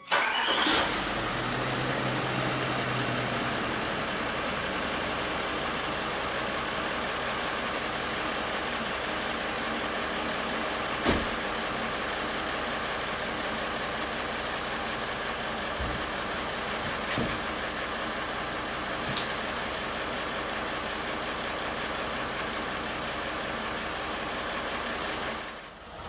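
Range Rover's 4.4 TDV8 twin-turbo diesel V8 starting, surging briefly in the first second, then settling into a steady idle, chuntering away on fresh oil just after a service. A few short sharp clicks come in the middle.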